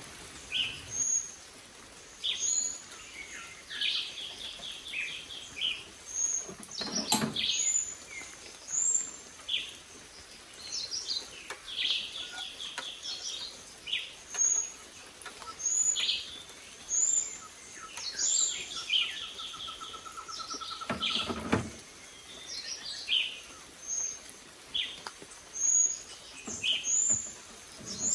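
Several jungle birds chirping and calling in short, repeated phrases, with high chirps recurring every second or two. Twice a brief clatter is heard, about seven seconds in and again about three quarters of the way through.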